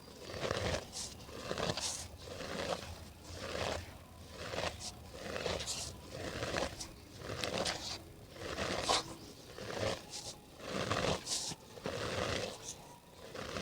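Dry cement dirt being crumbled, a gritty crunch repeating about once a second.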